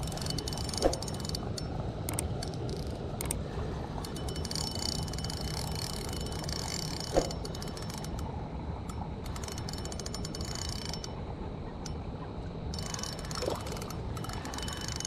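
A fishing reel ticking rapidly in runs with short pauses while a hooked bass is being played and reeled in. Two sharp knocks stand out, about a second in and about seven seconds in.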